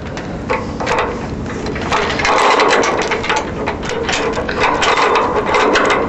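Safety chain rattling and clinking as it is hooked on to secure a truck-mounted Burro forklift: a run of quick clicks, with denser rattling about two seconds in and again in the latter part.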